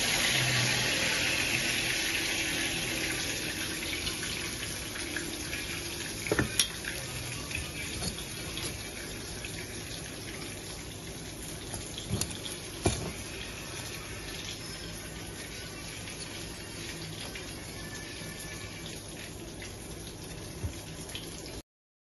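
A steady rushing hiss, like running water or frying, that slowly fades, with a few light knocks now and then.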